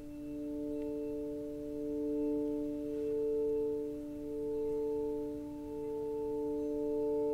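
Music: a held chord of a few pure, steady tones, swelling and easing slowly in loudness, with no new notes struck.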